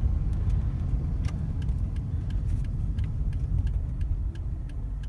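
Toyota car being driven, a steady low rumble of engine and road, with scattered light clicks over it.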